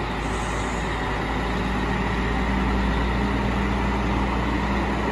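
A heavy delivery truck's diesel engine running steadily as the truck drives forward, a low drone that grows slightly louder after about two seconds.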